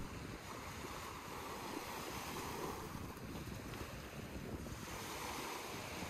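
Small sea waves washing onto a sandy beach: a steady rush of surf that swells about half a second in and eases off near five seconds, with wind rumbling on the microphone.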